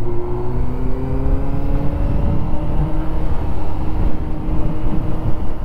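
Honda Hornet motorcycle engine accelerating, its pitch rising slowly over the first few seconds and then holding steady as it cruises. Wind and road rumble sit under it.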